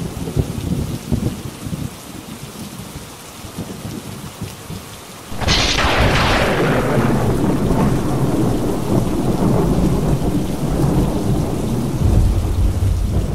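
Thunder: a low rumbling, then a sudden loud thunderclap about five seconds in that rolls on as a long, heavy rumble.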